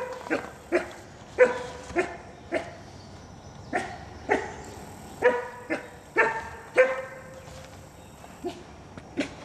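Eight-week-old Mexican gray wolf pup giving short, sharp yelping barks, about one or two a second with a brief pause near the end. They are the distress calls of a nervous pup being restrained and handled.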